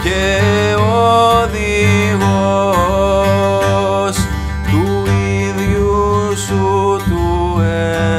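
Instrumental music: a held melody that bends and wavers in pitch over a steady, pulsing low accompaniment with plucked strings.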